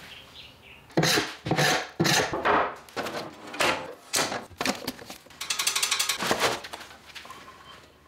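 A series of knocks and clunks from handling a drum sander's hinged steel extension table and setting wood on it, followed by a short, fast rattle.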